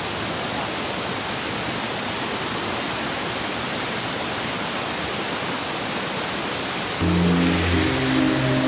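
Waterfall rushing, a steady even roar of falling water. About seven seconds in, background music with sustained low notes comes in over it.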